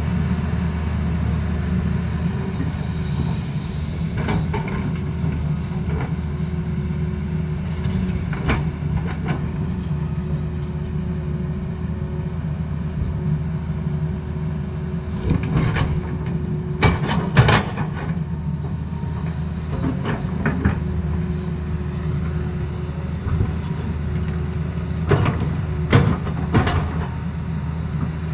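Tata Hitachi hydraulic excavator's diesel engine running steadily under load while its bucket works broken rock. Irregular sharp clanks and knocks of the bucket and rock sound over the engine, with a loud cluster past the middle and another near the end.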